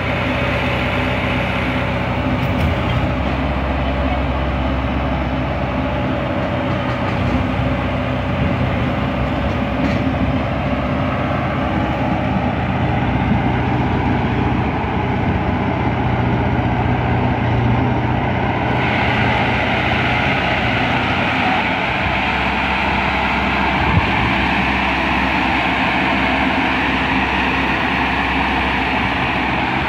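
Kubota DC-68G combine harvester's diesel engine running steadily under load at close range while it crawls out of mud under tow. About two-thirds of the way through, a brighter, higher rushing sound joins the engine and stays.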